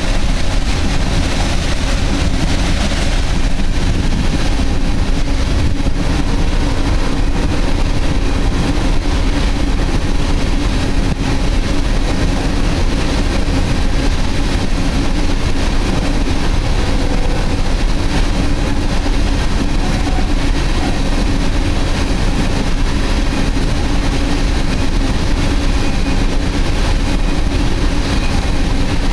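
Empty ore cars of a freight train rolling steadily past close by: the continuous rumble of steel wheels on the rails.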